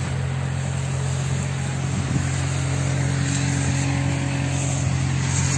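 Engine of a pesticide sprayer running steadily with a low hum, powering a hose-fed spray gun; a slightly higher tone joins about two seconds in.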